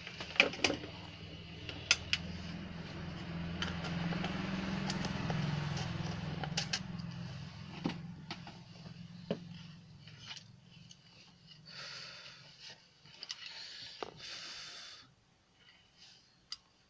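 Hot-air rework gun's fan blowing with a steady hum and hiss, dying away over several seconds after the gun is set in its holder, with a few knocks from handling at the start. Short rustles follow near the end.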